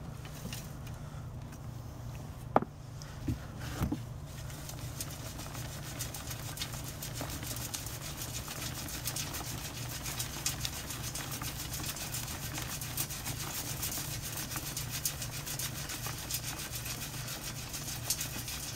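Compost being dumped from a hand trowel into a perforated metal grill pan, with a few sharp knocks early on. Then the pan is shaken back and forth as a sieve, and a fast, dense rattle of crumbs patters on the metal and through its quarter-inch holes into the plastic tote below. A low, steady hum runs underneath.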